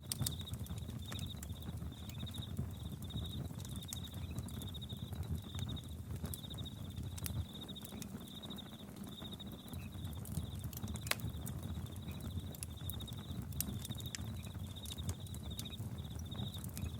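Crickets chirping in steady pulsed trills over a campfire crackling with irregular sharp pops and a low rumble.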